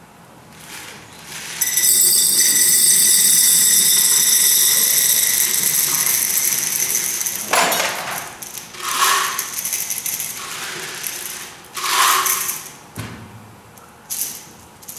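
Small hard pieces, likely pebbles, are poured into a clear jar already holding balls, giving a long steady rattle as they fall into the gaps. Then come several short rattling bursts as the jar is handled and shaken.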